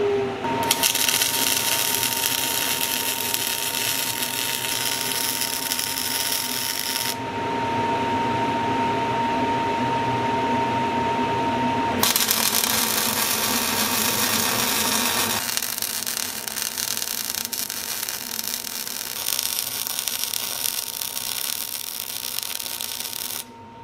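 MIG welder arc crackling as a steel collar is welded onto a shaft, in two runs: the first starts just under a second in and stops about seven seconds in, the second starts about twelve seconds in and cuts off abruptly just before the end. A steady high tone is heard in the pause between runs.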